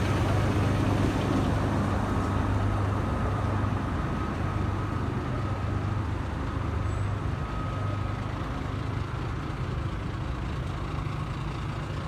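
A heavy engine running steadily, a low hum with a faint steady whine above it, slowly growing fainter.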